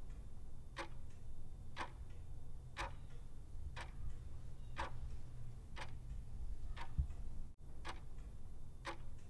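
Clock ticking about once a second, a quiz countdown-timer sound effect marking the time to answer, over a low steady hum.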